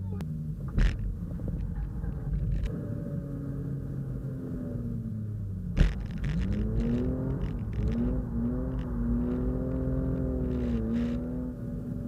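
BMW E36 328i's straight-six engine heard from inside the cabin, running hard with its pitch dropping and climbing again as the revs change. Two sharp knocks come through, one near the start and one about halfway.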